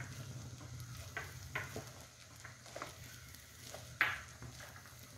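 Wooden spatula stirring and tossing chicken fried rice in a frying pan, a run of soft scrapes with one sharper knock about four seconds in, over a faint sizzle.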